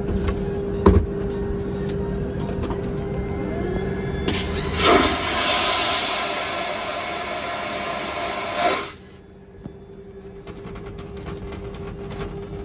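Airliner vacuum toilet flushing: over a steady cabin hum, a loud rushing whoosh of suctioned air starts about four seconds in, runs for about four and a half seconds and cuts off sharply. The toilet draws mostly air and only a little water.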